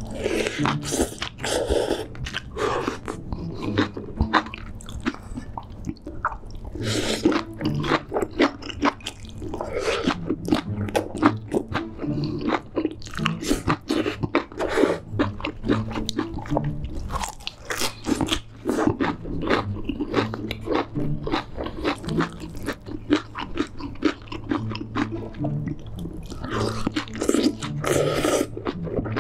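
A person eating close to the microphone: continuous wet chewing and crunchy bites, with longer slurps of noodles about a second in and again near the end.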